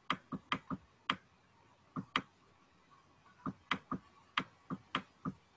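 A stylus tapping on a pen tablet while words are handwritten: about fourteen short, sharp clicks, irregularly spaced in small clusters, with a pause of about a second in the middle.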